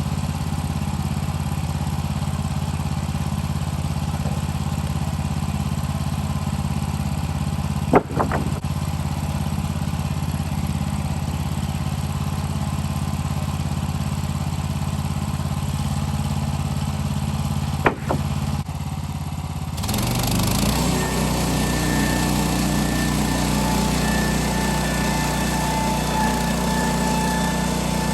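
Sawmill engine running steadily, with two sharp clicks about eight and eighteen seconds in. About twenty seconds in it gets louder and a steady higher tone comes in, as the saw takes up load ripping lumber into purlins.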